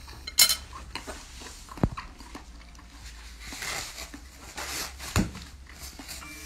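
Eating sounds: a few sharp clicks and clatters of tableware, the loudest about half a second in, then a paper tissue rustling as the mouth is wiped.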